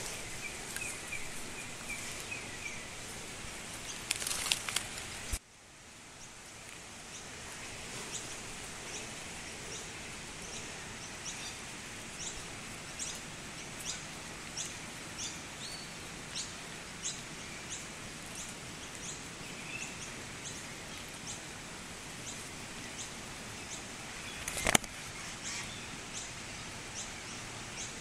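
Steady outdoor background hiss with short, high chirps repeating about once a second through most of it. A burst of rustling clicks about four seconds in, then the background drops suddenly and creeps back; a single sharp knock near the end is the loudest sound.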